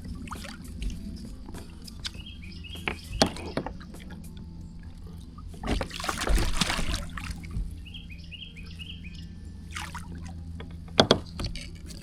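Water splashing and sharp knocks against a kayak while a hooked catfish is fought alongside and brought in, with a longer splash about six seconds in. A bird sings two short phrases in the background.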